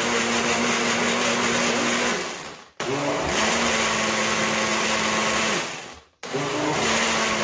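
Countertop blender grinding soaked rice with coconut milk into batter. The motor runs in three pulses: it winds down and stops about two and a half seconds in and again about six seconds in, each time spinning back up with a rising whine.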